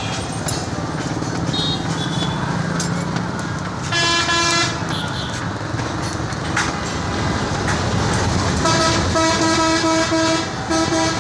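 A vehicle horn honks: one short blast about four seconds in, then a longer, broken series of honks near the end, over a steady rumble of street traffic.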